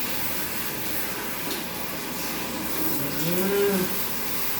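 Shower water running with a steady hiss. About three seconds in, a cat gives one low, drawn-out yowl that rises and falls in pitch, the cry of a cat being bathed.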